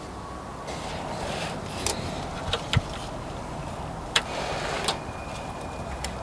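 Plastic wheel-arch cover being handled and pushed into place: a scraping rustle with several sharp clicks and knocks, the loudest about four seconds in.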